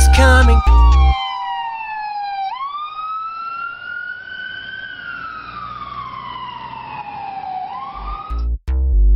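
Ambulance siren in a slow wail: its pitch falls, sweeps back up, falls slowly again and starts to rise once more. A song with a heavy beat plays for about the first second, and electronic music with drum beats comes in near the end.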